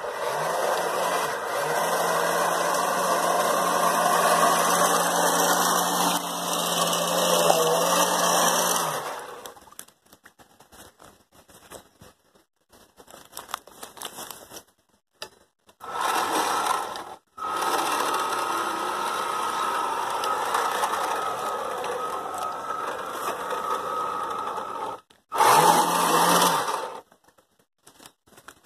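Twin Kyosho Le Mans 360 brushed electric motors of an RC boat running under power, a steady whining buzz mixed with water noise. The motors run for about nine seconds, cut off, start again for about ten seconds, then give one short burst near the end.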